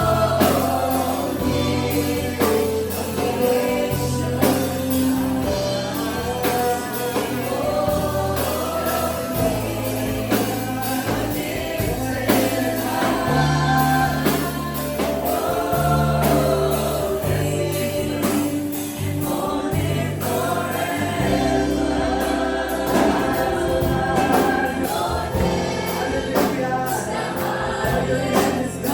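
Live gospel worship music: a group of voices singing over a band with a stepping bass line and a steady drum beat.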